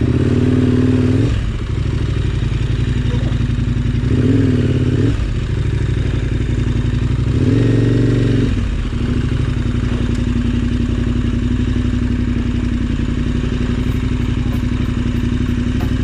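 Adventure motorcycle's twin-cylinder engine running steadily at low revs, with three short blips of the throttle in the first half.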